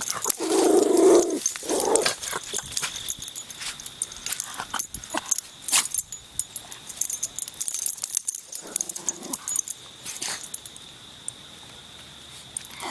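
Small pet dogs vocalizing, low growly sounds in the first two seconds and again briefly near the end, among scattered sharp clicks.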